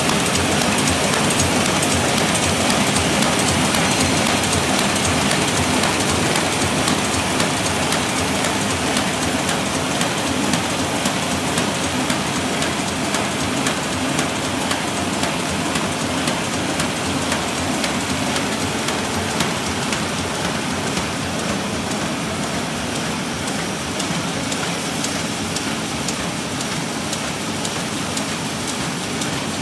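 KM330 paper bag machine running at production speed: a steady, dense mechanical clatter of rollers and folding gear with rapid ticking, easing a little quieter toward the end.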